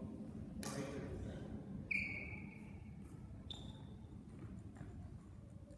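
Badminton hall between rallies: one sharp hit about half a second in, then two short squeaks, the first near two seconds in and a shorter, higher one about a second and a half later, typical of court shoes on the sports-hall floor.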